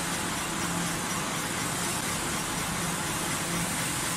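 Heavy-duty CNC flanging (metal spinning) machine running, a steady mechanical noise with a low hum under it.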